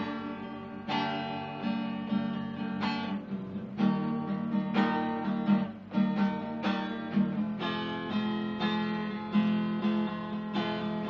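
Acoustic guitar strummed in a steady rhythm, playing an instrumental chord introduction with no voice.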